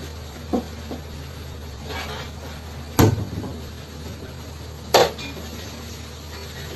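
Hard objects knocking: a light tap about half a second in, then two sharp clacks about three and five seconds in, over a steady low hum.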